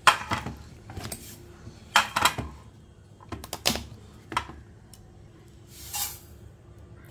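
Several sharp knocks and clatters of a frying pan and plates handled on a glass-top stove, then about six seconds in a short rattling hiss of whole coriander, cumin and mustard seeds poured from a plastic plate into the dry pan.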